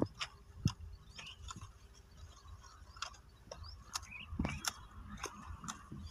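Hand pruning secateurs snipping the stems of a young guava plant: irregular sharp snips and clicks, several seconds apart to a few close together.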